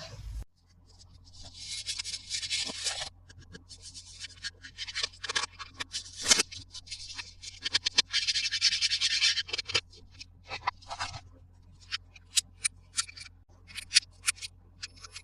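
Unboxing a plastic toy playset: two stretches of rustling, scraping packaging, about two seconds in and again around eight seconds, among scattered clicks, then a run of separate sharp plastic clicks and taps in the last few seconds.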